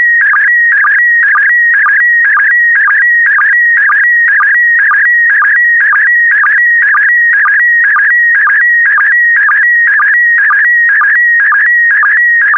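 Slow-scan TV image signal in PD120 mode: a loud, steady electronic tone near 2 kHz that warbles as it carries the picture. It is broken by a short lower blip about twice a second, the sync pulse marking each new pair of image lines.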